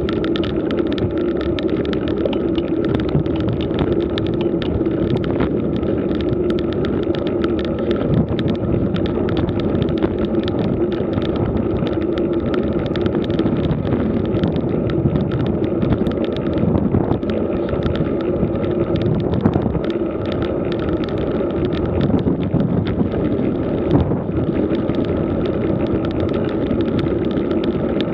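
Road bike rolling on rough, cracked asphalt, heard from a camera on the bike: steady tyre rumble and wind noise with a constant hum and many small rattles and clicks from the road surface.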